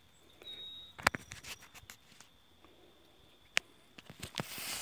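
Sparse light clicks and crackles of dry grass and twigs being brushed and handled, with rustling that builds near the end.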